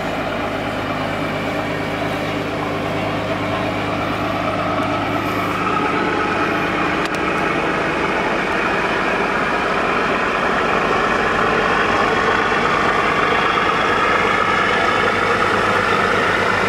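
Passenger ship's diesel engines running as a steady drone of several tones, growing slowly louder.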